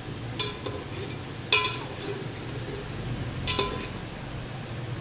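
A long metal spoon stirring chicken in an aluminium cooking pot, clinking and scraping against the pot's side. There are a few ringing clinks, the loudest about one and a half seconds in and a close pair around three and a half seconds.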